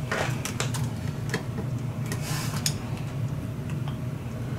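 Small irregular clicks and a brief rustle about two seconds in, as a flat ribbon cable with clear tape over its gold contact pins is handled and pushed back into its connector on an LCD TV's circuit board. A steady low hum runs underneath.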